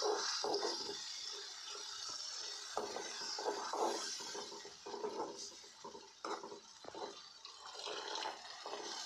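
Water poured from a jug into a pan of frying masala, with a steel spoon stirring and scraping in the aluminium kadhai; more water is poured in near the end.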